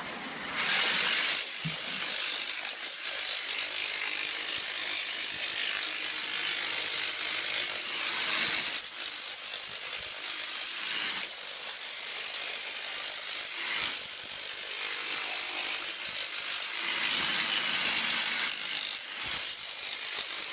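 Electric demolition hammer with a dust-shroud chisel chipping glazed saltillo tile off a concrete floor: rapid, steady hammering mixed with the crackle of breaking tile. It starts about a second in, with a few brief pauses.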